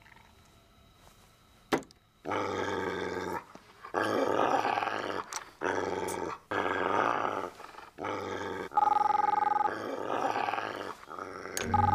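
A dog growling in a string of bursts, each about a second long. Near the end a telephone rings twice.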